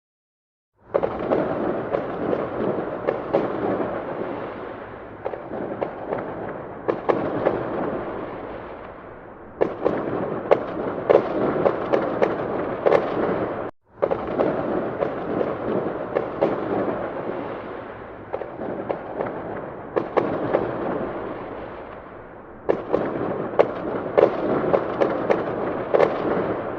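Fireworks going off: a dense run of sharp bangs and crackling. It comes in several stretches that start suddenly and then die away, with a brief break about halfway through.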